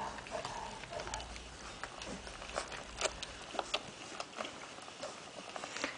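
Five-week-old Great Pyrenees puppies nursing from their mother: irregular small wet sucking and smacking clicks, a few a second.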